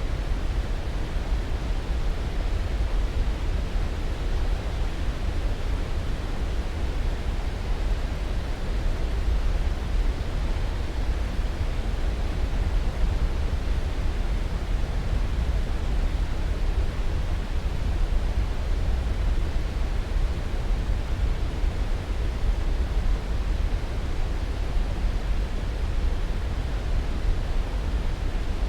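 Steady, unbroken sleep-aid noise: an even rushing hiss weighted toward the low end, deeper than pure white noise, with no change in level.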